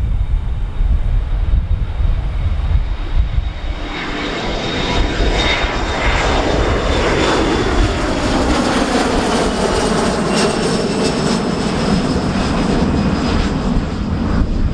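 An airliner passing close by, its engines swelling to a loud roar with a high whine from about four seconds in; the whine drops in pitch as the aircraft goes past. Wind rumbles on the microphone throughout.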